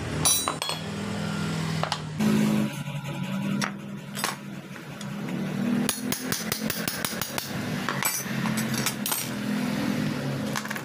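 Hammer striking a steel punch to drive the leaking mechanical seal and worn shaft out of a motorcycle water pump housing (Yamaha Jupiter MX), with sharp metallic taps. A quick run of about six or seven taps a second comes about six seconds in, with a few single taps before and after.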